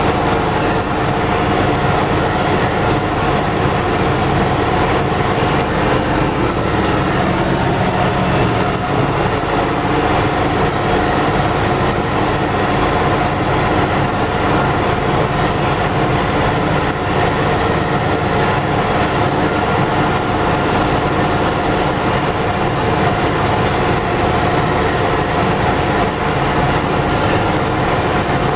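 MTZ tractor's diesel engine and drivetrain running steadily under way. The freshly repaired axle and gearbox are shown as running without the axle hum.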